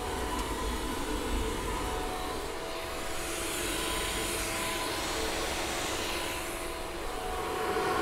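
Creality CR-5 Pro H 3D printer running a print: a steady whir of its cooling fans with a few faint steady tones. The stepper motors make almost no sound, typical of very quiet stepper drivers.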